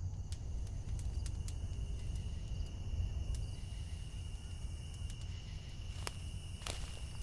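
Night-time ambience: a steady, high cricket trill over a low rumble, with a couple of sharp clicks near the end.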